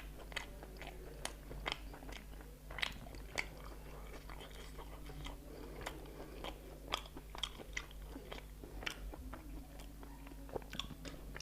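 A person chewing a mouthful of food, with irregular wet mouth clicks and smacks and now and then a crunch.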